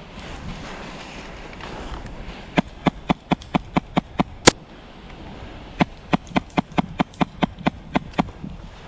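Airsoft gun fired in two quick strings of single shots, about five sharp cracks a second, roughly nine shots then ten, with one shot at the end of the first string louder than the rest. Wind rumbles on the microphone throughout.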